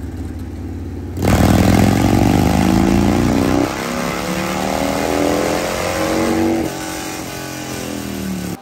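Harley-Davidson Milwaukee-Eight 121 V-twin of a 2023 CVO Road Glide on a chassis dyno: idling, then about a second in it goes to full throttle and the revs climb steadily through a long dyno pull, backing off near the end.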